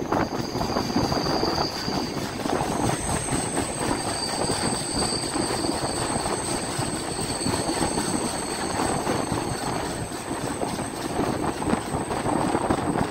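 Indian Railways LHB passenger coaches running on the track: a steady rolling rumble of wheels on rails, with a thin high-pitched squeal over it.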